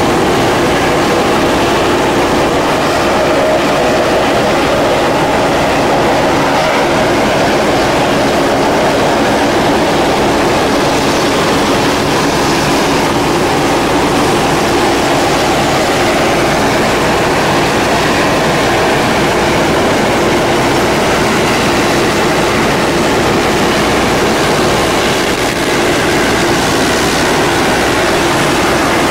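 Saab 340 regional airliner's twin turboprop engines running, a loud steady drone with a steady whine through it.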